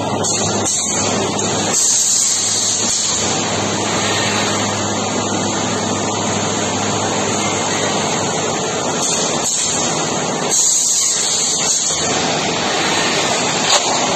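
Steady, loud machinery noise of a running roll-formed-profile packing line. Near the end there is a single sharp clank as the servo stacking head comes down onto the stack of steel profiles.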